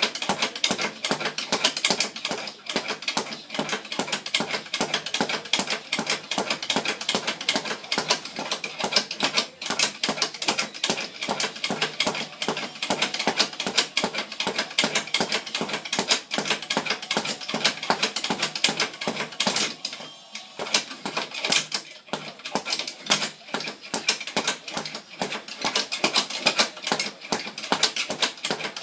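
Speed bag being punched in a fast, steady rattle of hits, with a brief break about twenty seconds in.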